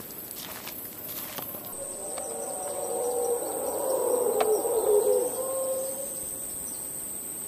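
Footsteps on a leaf-littered path for the first second or so, then a steady high insect drone sets in. Over it a wavering animal call swells and fades over about four seconds, loudest around five seconds in.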